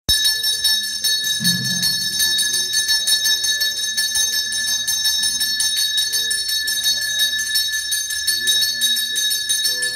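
Temple puja bell ringing continuously with rapid, even strokes, its high metallic ring sustained throughout.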